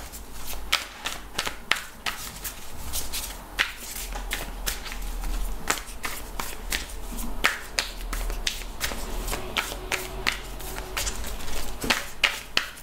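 A deck of tarot cards being shuffled by hand, overhand, the cards slapping and clicking against each other in a run of sharp, irregular ticks a few times a second.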